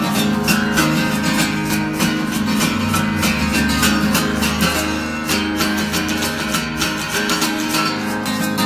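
Solo acoustic guitar strummed in a steady rhythm, an instrumental passage with no singing.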